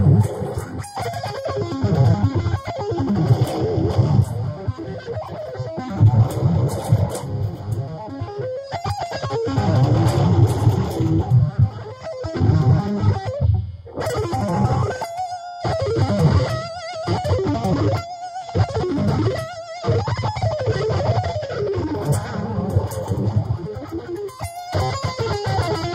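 Electric guitar shred playing: fast runs of notes. A stretch in the middle is played as short, clipped phrases separated by brief pauses.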